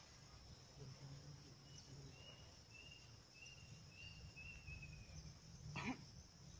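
Faint riverside ambience: a steady high insect drone, with a run of about six short, evenly spaced chirping notes in the middle. Near the end comes one brief louder swish.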